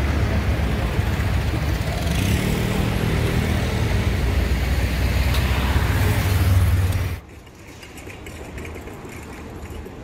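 Van engine running close by amid street traffic, a steady low rumble. It cuts off suddenly about seven seconds in, leaving quieter street ambience.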